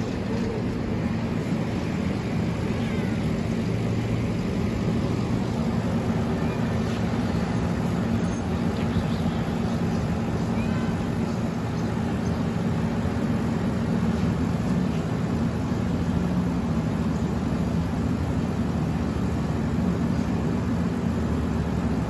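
A few short, faint meows from a street cat over a steady, low, engine-like hum of street noise.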